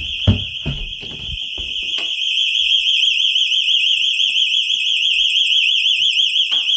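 Vivint security system alarm siren sounding after the glass-break sensor's test button was pressed, with the system in test mode. A piercing, steady high-pitched tone starts to warble about two and a half seconds in, the warble quickening and growing louder. A few knocks come from handling in the first second or so.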